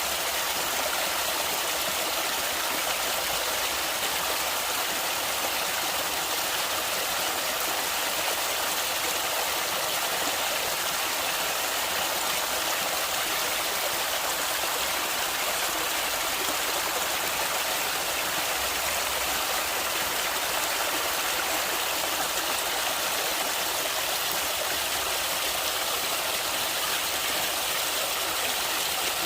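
Flowing stream water: a steady, even hiss of running water with little low end and no change throughout.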